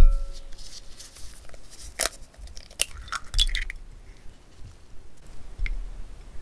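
A hen's egg cracking open over a glass mixing bowl: a sharp crack about two seconds in, then a short run of shell crunches and clicks as the shell is pulled apart and the egg drops in. A single faint click follows near the end.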